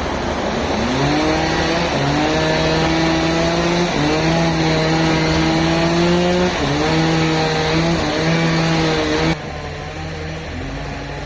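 Engine running fast with a steady pitched drone that climbs about a second in and then dips briefly in pitch several times. Near the end the sound cuts off abruptly and becomes quieter.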